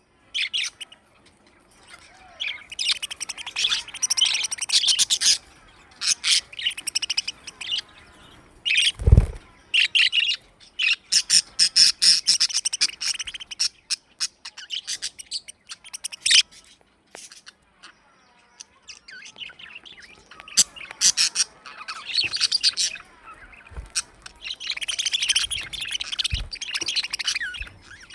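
Several budgerigars chattering and chirping in repeated bursts, with some squawks. There is a single low thump about nine seconds in.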